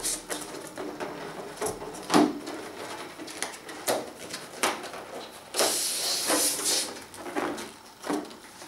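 Latex balloons rubbing and squeaking in the hands as a deflated five-inch balloon is pushed through the neck into a clear balloon, with a string of short squeaks and clicks and a louder rubbing hiss lasting about a second a little past halfway.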